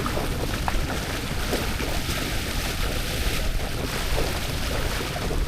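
Boat under way on open water: a steady rush of wind buffeting the microphone, with low rumble and water noise.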